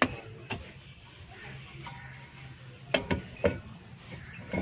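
Metal clinks and knocks of a brake drum being handled and slid over freshly adjusted drum-brake shoes onto the wheel hub. There are two light clicks at the start, then three knocks in quick succession about three seconds in.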